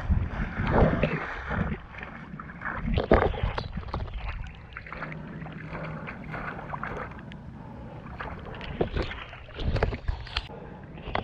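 Powerslide Imperial SUV off-road inline skates on air-filled tyres rolling through mud and wet ground, with irregular sloshing and scraping and occasional knocks.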